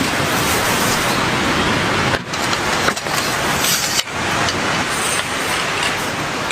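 Heavy rain pouring down: a steady, loud hiss, briefly dipping about two and four seconds in.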